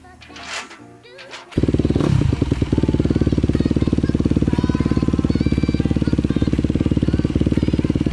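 A Honda 250 motocross bike's single-cylinder engine catches about a second and a half in, then runs at a fast, even idle.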